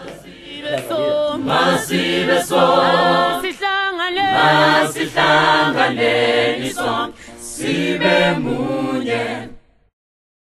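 Group of voices singing without instruments; the singing cuts off suddenly shortly before the end.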